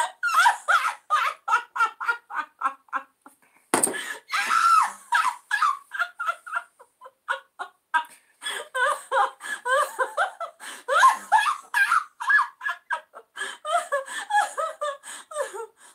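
A woman laughing hard in a long run of rapid, high-pitched giggling bursts. The laugh breaks off briefly a little over three seconds in, then starts again with a loud burst.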